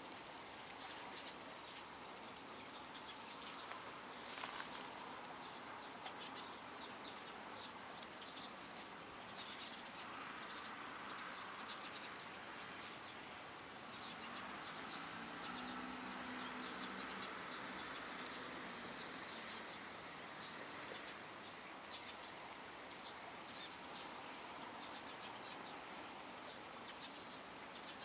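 Shiba Inu sniffing with its nose in dry grass: faint, scattered crackling and rustling of dead stalks, with a faint low hum in the middle stretch.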